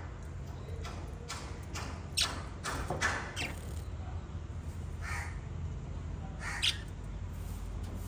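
Pet lovebirds giving short, harsh chirps and squawks at irregular intervals, several in quick succession a couple of seconds in and a few more later, over a low steady hum.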